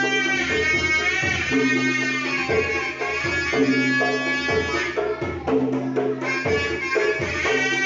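Sundanese tarompet, a double-reed shawm, playing a bending, nasal melody over steady kendang drum accompaniment.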